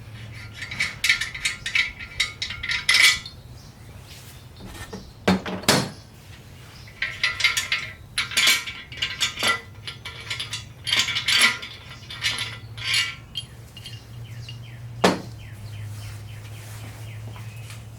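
Small metal parts and tools clinking and rattling as they are handled, in several bursts with a ringing metallic note, over a steady low hum.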